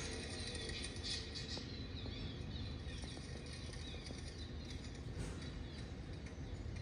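Recorded harbour ambience: many small birds chirping over a steady low rumble.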